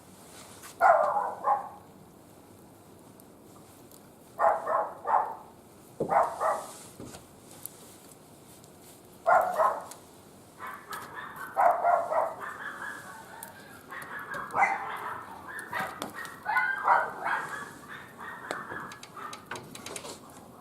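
A dog barking in short bursts of two or three barks, then barking more steadily through the second half.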